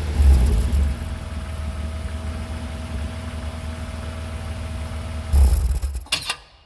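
BMW 323ti's stock 2.5-litre straight-six, standard exhaust, idling steadily, with a short blip of the throttle just after the start and another about five seconds in. The engine then cuts out near the end.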